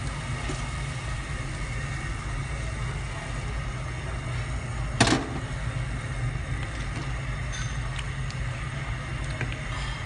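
A pot of soup at a rolling boil on the stove: a steady low rumble and hiss, with one sharp clink about five seconds in as a ladle knocks the pot.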